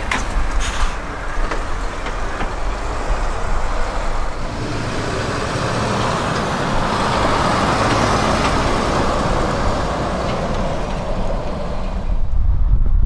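Articulated lorries passing on the road: Renault T-series trucks' engine and tyre noise, with a few rattles from the first trailer at the start and a swell as another lorry drives past in the middle. Near the end the sound switches abruptly to a deeper rumble.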